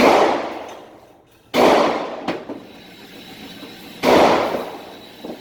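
Three AR-15 rifle shots, the second about a second and a half after the first and the third about two and a half seconds later, each a sharp crack that rings out and fades over about a second.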